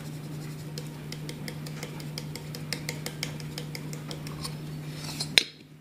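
Light, irregular clicking and tapping of kitchen items handled on a counter over a steady low hum, with one sharp knock about five seconds in, after which it goes quieter.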